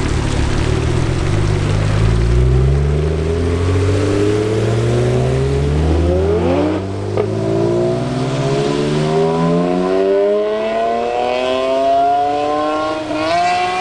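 Tuned BMW 1M Coupé's twin-turbo inline-six under a long, hard acceleration. The engine note rises steadily in pitch, with a short break about seven seconds in and a brief dip and recovery near the end.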